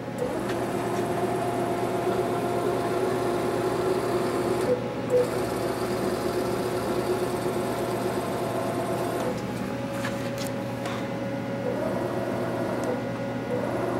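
Bridgeport EZ-Trak CNC knee mill's X-axis drive jogging the table: a steady, quiet motor whine whose pitch changes about a third of the way in and again about two-thirds of the way through.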